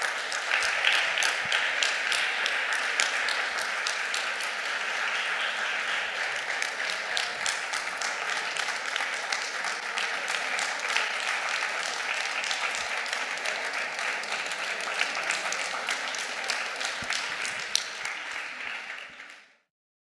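Audience applauding: many hands clapping steadily, then fading out quickly near the end.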